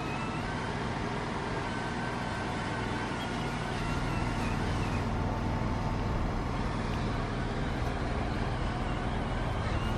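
Pacific P9 water truck's diesel engine idling steadily, a little louder from about four seconds in.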